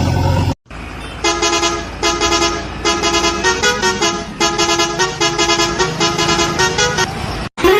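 A vehicle horn honks a rhythmic string of short notes, mostly on one pitch with a few higher ones, like a horn tune. It starts about a second in, after a brief steady engine sound cuts off suddenly.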